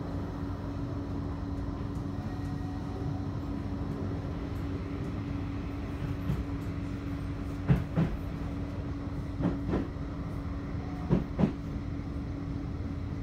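Bombardier Flexity 2 tram heard from inside the passenger saloon while running: a steady rumble with a steady hum. From about halfway, the wheels knock over track joints in three quick pairs.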